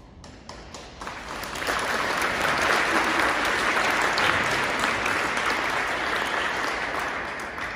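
Audience applauding: a few scattered claps, then full applause building about a second in and tapering off near the end.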